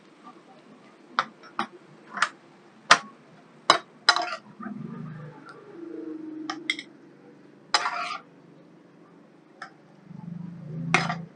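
Spatula clacking and scraping against a frying pan while stir-frying cauliflower: a sharp knock every second or so at irregular intervals, with scraping between. Near the end the food is scraped out onto a ceramic plate.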